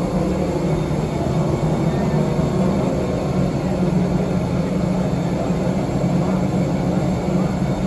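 Steady drone of aircraft and ground equipment on an airport apron, with a strong low hum.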